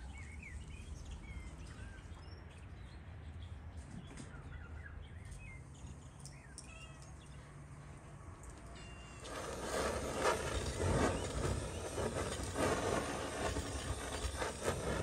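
Small birds chirping over a low steady hum. About nine seconds in, a handheld canister gas torch starts, and its flame hisses loudly with repeated surges as it is played over a hanging carcass to singe it.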